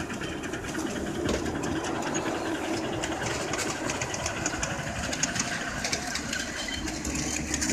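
5-inch gauge ride-on miniature steam locomotive running with riders aboard, a rapid, rhythmic clatter.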